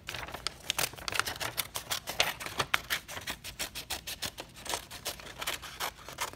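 Scissors snipping through a sheet of paper: a quick run of short, crisp snips, several a second, as the blades work along a cutting line.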